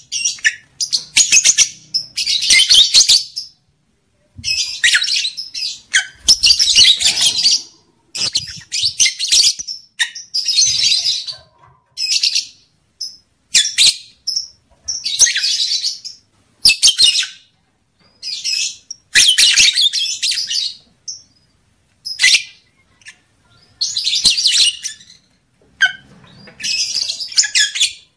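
Lovebird chattering: high-pitched rapid calls in repeated bursts of about half a second to a second and a half each, with short pauses between them.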